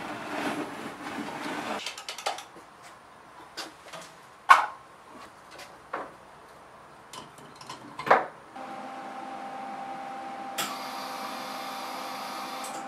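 Clicks and knocks of a metal pantograph frame and its welding-gun holder being handled and adjusted by hand, with two louder knocks. About eight and a half seconds in, a steady machine hum starts, and a high hiss joins it about two seconds later.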